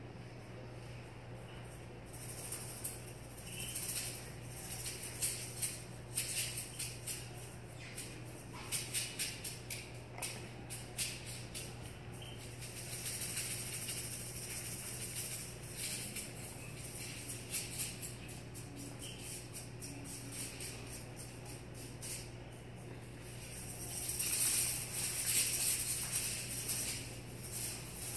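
Hand-held rattle being shaken, first in quick separate strokes, then in longer continuous shakes, loudest near the end.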